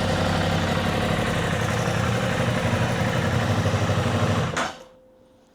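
Aprilia Tuono 660 Factory's 660 cc parallel-twin engine idling steadily, then switched off about four and a half seconds in. It dies away quickly, leaving only a faint steady hum.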